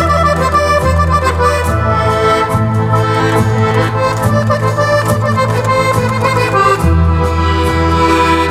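Circassian accordion (pshine) playing a qafe dance tune: a melody over sustained bass notes. The bass shifts up about two seconds in and drops back down near the end.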